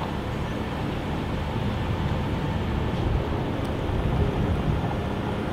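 Steady outdoor background noise with a deep, uneven low rumble, like traffic or wind on the microphone.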